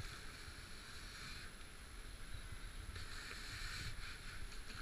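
Whitewater rushing and splashing over a GoPro on a kayak running a rapid: a steady rushing hiss with low rumbling on the microphone.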